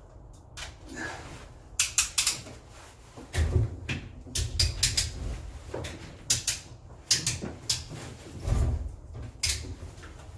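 Irregular sharp clicks and knocks of hand work on an electrical socket installation: plastic fittings and tools being handled. There are two dull low thumps, about three and a half and eight and a half seconds in.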